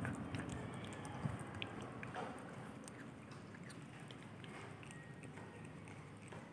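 A cat chewing and nibbling fresh coconut meat: soft, small wet clicks and crunches, a little louder in the first two seconds, then fainter.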